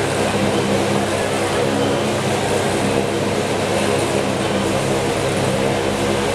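Three motorcycle engines running together at a steady, loud pitch as the riders circle inside a steel-mesh globe of death.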